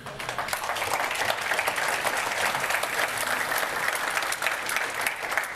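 Congregation applauding, a steady sustained round of clapping.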